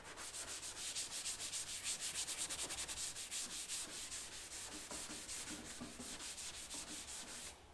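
Scotch-Brite abrasive pad rubbed by hand over a plastic kayak hull in quick, even back-and-forth strokes, scuffing the gloss off the keel to prepare it for a keel guard patch.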